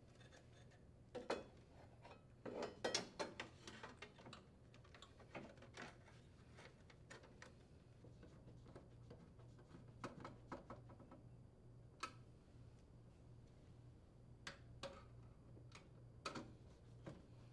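Faint clicks and light metal clatter of a sheet-metal access cover being fitted into a heat pump's housing, then scattered ticks of a Phillips screwdriver driving its screws. The clicks cluster between about one and four seconds in, then come singly.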